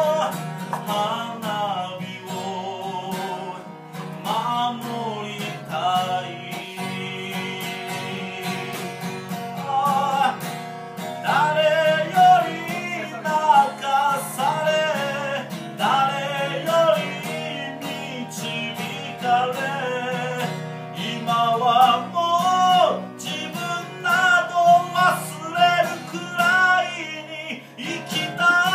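A man singing a slow ballad to his own acoustic guitar, live. Held notes carry vibrato over the steady guitar accompaniment.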